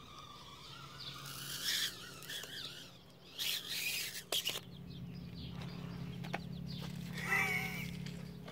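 High, wavering animal calls, one group about a second in and another near the end, over a steady low hum, with a few sharp clicks in between.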